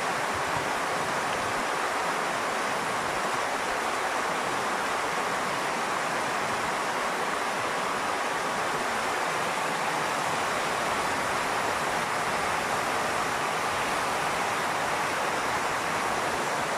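Very heavy rain pouring down in a cloudburst: a dense, steady hiss that does not let up.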